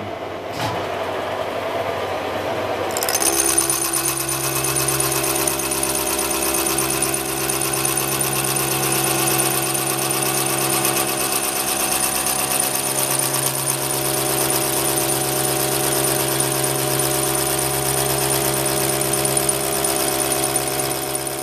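Stanko 6T12 milling machine cutting a steel woodchipper blade. The cutter bites into the steel about three seconds in, and from then on there is a steady, loud milling chatter: a fine, rapid rattle of the cutter teeth over several steady whining tones.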